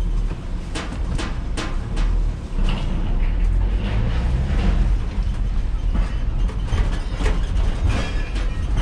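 A heavy vehicle engine runs with a steady low rumble, over irregular metallic clanks and knocks.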